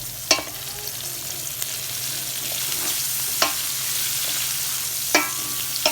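Sliced onions and turmeric frying in oil in a pan, sizzling steadily, with a spoon knocking against the pan four times as they are stirred.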